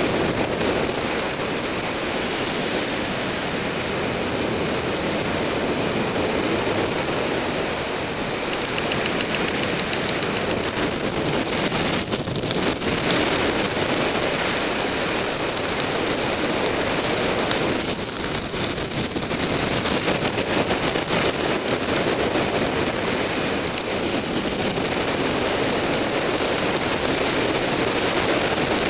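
Steady wind noise rushing over the microphone of a camera descending under a parachute, with a brief rapid flutter about nine seconds in.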